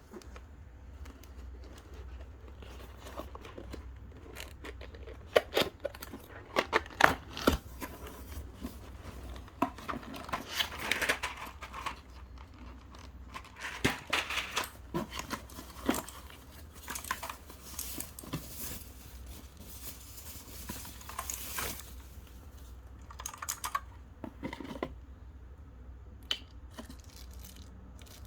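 Packaging being handled and opened: plastic and paper crinkling and tearing, with scattered irregular clicks and knocks.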